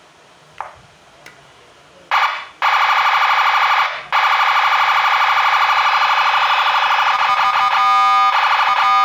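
Senken 60-watt electronic siren module sounding through a Narae NSH70 speaker. After a short blast about two seconds in, it gives a loud, steady, rapidly pulsing siren tone, breaks off briefly near four seconds, then runs on and changes pattern near the end.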